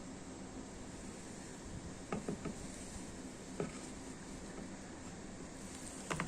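Steady low hiss with a few light knocks and clicks: a small group about two seconds in, a single one a second later, and a quick cluster at the very end.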